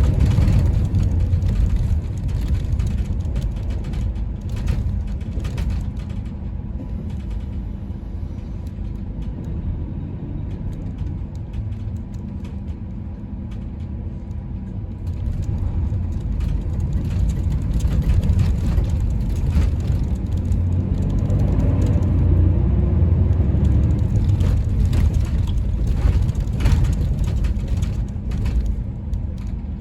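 Inside a highway coach: the engine runs with a heavy low rumble while the bus body rattles and knocks as it jolts over a bumpy, rutted snow-packed road. The engine note rises about two thirds of the way through as the bus pulls away.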